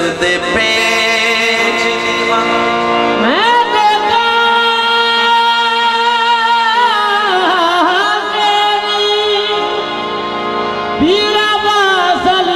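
Qawwali singing: a male lead voice holds long ornamented notes over sustained harmonium chords, sliding up into a new high note about three seconds in and again near the end.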